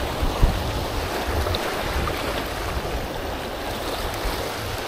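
Surf washing on the beach with wind buffeting the microphone: a steady rush of waves under irregular low gusty rumbles.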